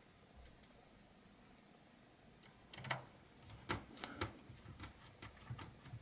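Faint clicks and taps of a small screwdriver working a screw into the corner of a laptop's plastic bottom case. It is mostly quiet for the first few seconds, then a scattering of clicks starts about three seconds in.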